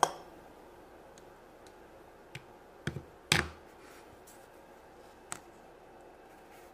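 A few light clicks and knocks from a plastic toy keychain figure being swung on its cord and handled over a tabletop. A sharp click comes right at the start, and the loudest knock comes a little past three seconds in.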